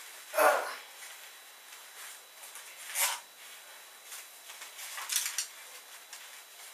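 Three brief rustling handling noises, a couple of seconds apart, against quiet room tone.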